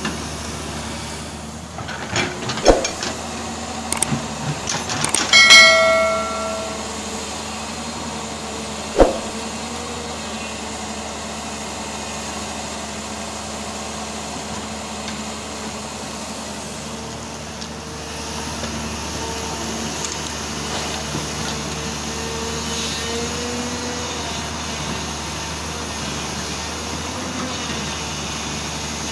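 Hyundai 210-7 crawler excavator's diesel engine and hydraulics running steadily while digging and swinging, the engine note rising a little about two-thirds of the way through. Two sharp metallic knocks, about 3 s and 9 s in, and a brief high-pitched ringing squeal about 5 s in.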